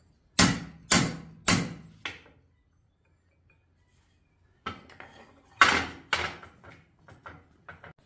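Hammer striking a short piece of rebar on a steel anvil to straighten a slight bend in it: four ringing blows in the first two seconds, then, after a pause, a second run of blows, two loud ones followed by lighter taps.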